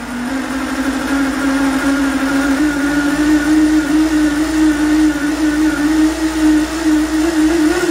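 Alpha-Otto REV Force supercharged two-cylinder two-stroke engine running at a steady speed. Its pitch rises slightly near the end.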